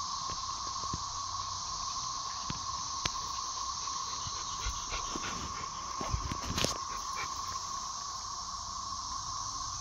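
Chorus of 13-year periodical cicadas overhead: a steady, unbroken droning whir. A few faint knocks sound about three seconds in and again between six and seven seconds.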